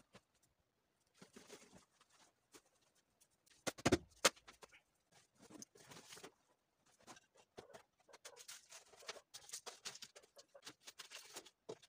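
Bags, a suitcase and books being lifted and shifted about: rustling of fabric and plastic with scattered knocks, two sharper knocks about four seconds in, and a stretch of steady rustling near the end.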